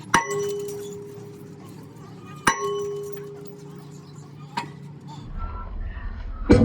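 Steel struck twice, about two and a half seconds apart, each sharp clang ringing on with a steady tone. A lighter knock follows, and a low hum starts near the end, just before another hard clang.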